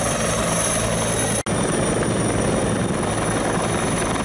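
Helicopter in flight, its rotor and engine running steadily, with a momentary dropout about one and a half seconds in.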